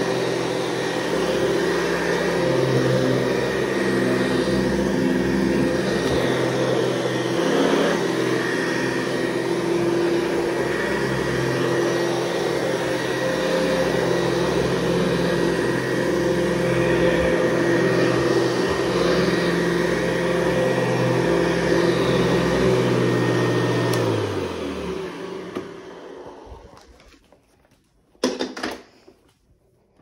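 Hoover Convertible U4315 upright vacuum cleaner running steadily on a rug, with a faint high whine over the motor's hum. About three-quarters of the way through it is switched off and the motor winds down, falling in pitch; a single knock follows.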